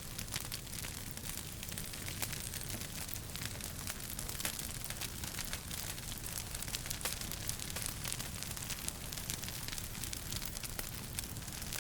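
Wood fire crackling in a fireplace: many small pops and snaps, scattered irregularly, over a steady low rumble and hiss.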